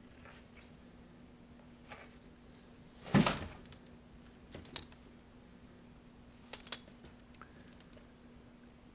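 Cats scuffling and moving around cardboard boxes on a wooden floor: one bump about three seconds in, the loudest sound, with short metallic jingles of a cat's collar tags, again a couple of seconds later and twice in quick succession after that.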